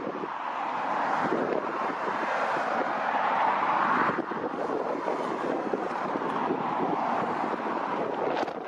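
Wind buffeting the microphone over the steady rushing noise of a Boeing 777F's GE90 jet engines. The noise swells for about four seconds, then drops off suddenly.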